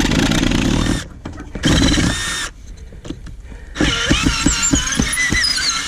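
Power drill backing a long screw out of wood in three bursts, the last and longest about two and a half seconds. The last burst carries a high, wavering squeal.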